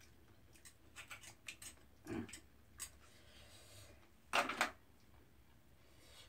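Light clicks and scrapes of a utensil working grilled oyster meat out of its shell, with a louder short clatter about four and a half seconds in.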